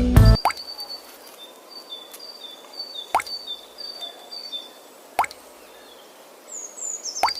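Small objects plopping into water four times, a few seconds apart, each a short sharp splash. Faint high chirping sounds in the background between the plops.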